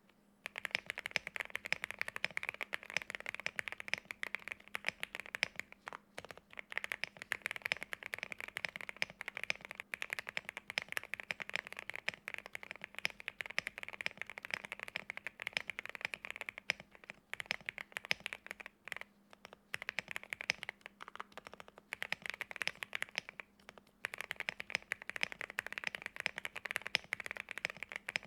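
Continuous typing on a Qwertykeys QK65 mechanical keyboard with Gateron Oil King linear switches lubed with Krytox 205g0, a POM plate, tape mod and PBT keycaps. A dense run of keystrokes starts about half a second in and is broken by a few short pauses.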